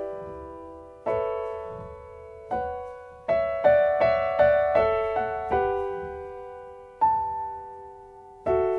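Solo piano music: chords struck one at a time and left to ring out, with a quicker run of notes in the middle.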